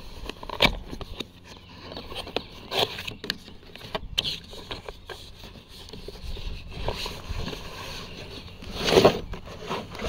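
A cardboard box being opened and handled: the flap and sides scrape and rustle, with scattered clicks and knocks. The loudest rustle comes about a second before the end.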